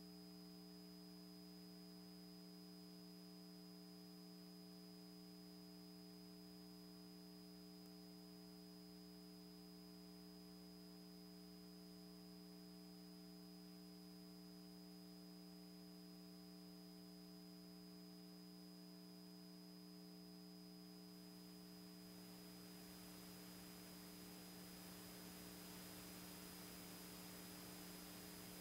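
Near silence: a faint, steady electrical hum from the sound system, with a light hiss coming up near the end.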